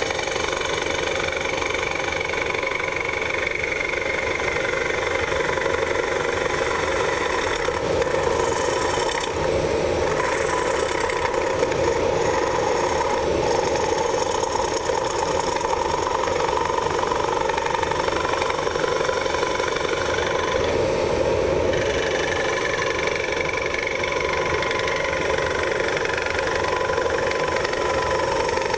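Wood lathe spinning a bowl while a carbide-tipped Easy Finisher hollows the inside: a continuous cutting and scraping of the tool in the wood over a steady machine drone from the lathe and a running dust collector.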